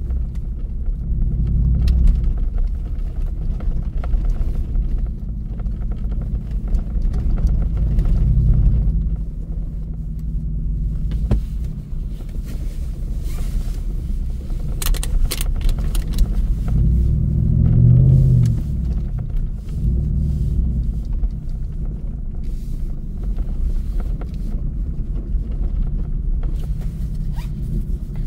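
Ford F-150's 5.0-litre V8 running and tyres rolling on a dirt track, heard from inside the cab as a steady low rumble. The engine swells a few times as the truck accelerates, with a burst of sharp clicks and rattles about halfway through.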